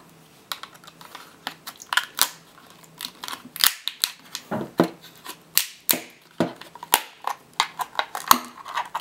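Flat-blade screwdriver prying open the plastic casing of an HP HSTNN-LB88 laptop battery pack: an irregular string of sharp plastic clicks and snaps as the blade works along the seam.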